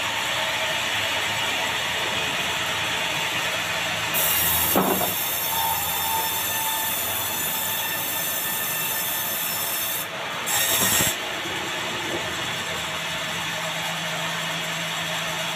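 Sawmill band saw running and cutting lengthwise through a large meranti log, a steady rough sawing noise. It grows louder and brighter for several seconds partway through, with a short louder burst a little later.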